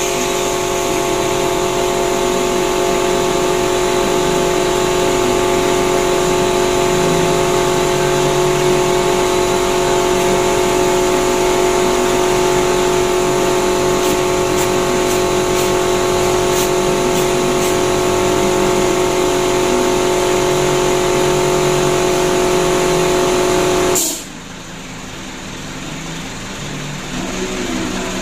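An engine running steadily: a loud, even hum with several held tones. It cuts off suddenly about four seconds before the end, leaving a quieter rumble.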